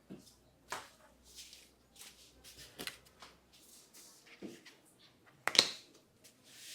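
Barber's hands handling coconut oil and working it into the hair: scattered soft rustles and small clicks, with one sharp, louder click about five and a half seconds in.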